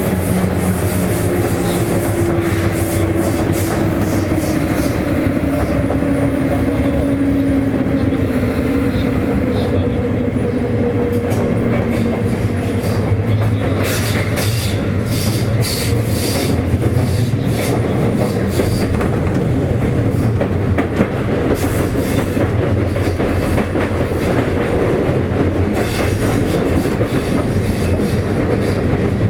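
Sotetsu 8000 series electric train running, heard from inside a motor car: a steady rumble with wheels clicking over rail joints. Over the first dozen seconds a whine from the Hitachi IGBT-VVVF traction equipment slowly falls in pitch, then fades.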